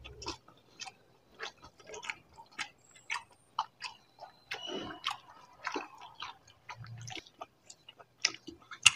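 Eating by hand from steel plates: irregular soft clicks and smacks of chewing and of fingers mixing rice against the metal plates.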